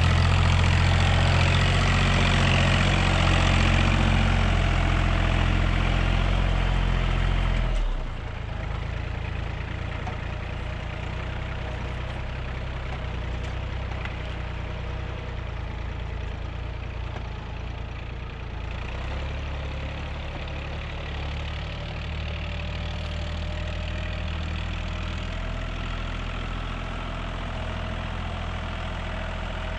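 Tractor engine running steadily as it pulls a laser land leveler across a field. The sound drops sharply in loudness about eight seconds in, then carries on at the lower level.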